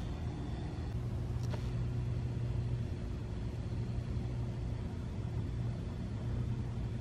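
Steady low rumble with a faint steady hum above it, and one faint click about a second and a half in.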